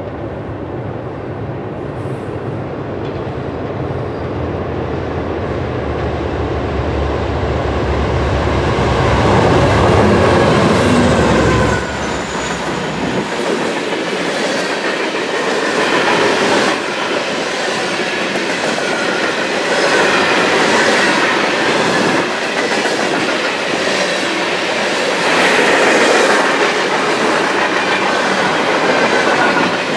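Freight train: diesel locomotive engines rumbling and growing louder as they approach over the first dozen seconds. Then, after an abrupt change, covered hopper cars rolling past close by, steel wheels clacking over the rail joints with the sound swelling and easing as the cars go by.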